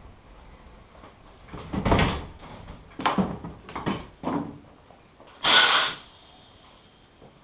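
Knocks and clunks from wooden boards and tools being handled, four times in about three seconds. Then a loud half-second rasping burst, with a faint ringing tone after it.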